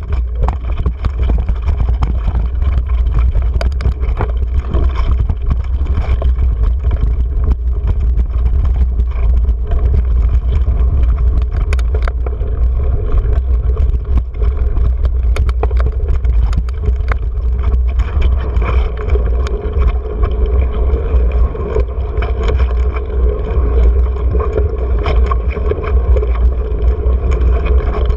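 Mountain bike ridden fast down a rocky dirt trail with an action camera mounted on it: heavy wind rumble on the microphone under a constant rattle and many sharp clicks and knocks as the bike and camera mount jolt over rocks and ruts.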